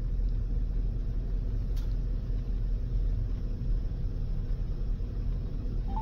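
Steady low rumble inside a parked vehicle's cabin. Right at the end a short beep sounds as the phone call begins to connect through the car speakers.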